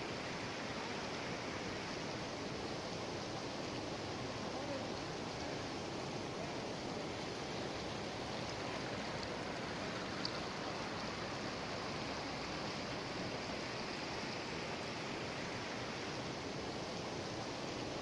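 Steady rushing of a swollen, muddy river in flood, its fast water churning over rocks and rapids.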